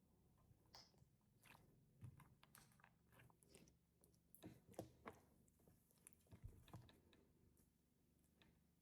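Faint, irregular soft crackles and clicks of slime with small crunchy cereal-cookie add-ins being squeezed and handled.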